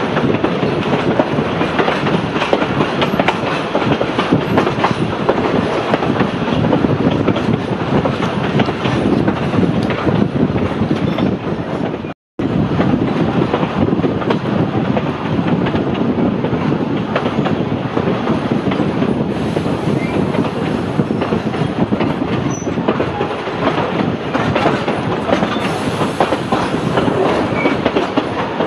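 Heritage railway carriage rolling on narrow-gauge track, heard from on board: a steady, loud rumble and clatter of wheels over the rail joints. The sound cuts out completely for a moment about twelve seconds in.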